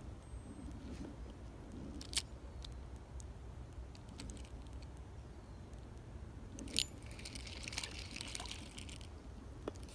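Spinning rod and reel being handled: a few sharp clicks, then near the end about two seconds of fine, rapid metallic clicking as the reel is cranked.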